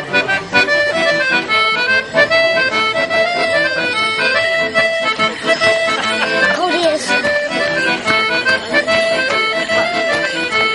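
Accordion playing a traditional dance tune, a continuous run of changing melody notes over held chords.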